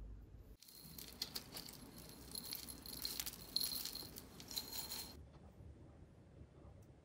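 Granola poured out of a glass jar, a dense dry rattle of clusters tumbling against the glass. It starts just under a second in and cuts off suddenly about five seconds in.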